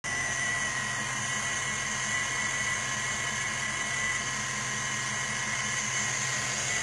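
Ford 5.0L V8 in a Mustang idling steadily, with a thin steady whine above the engine note.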